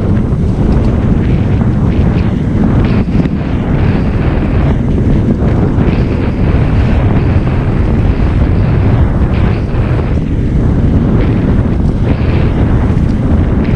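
Heavy wind buffeting the microphone: a loud, steady low rumble.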